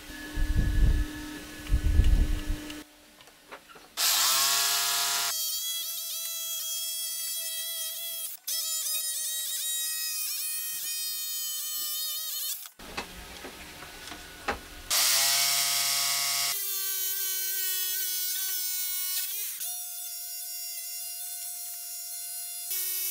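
Corded jigsaw running and cutting pine boards: a steady high motor whine that spins up sharply about four seconds in and again near fifteen seconds, with its pitch shifting around nineteen seconds. A few low thumps in the first three seconds.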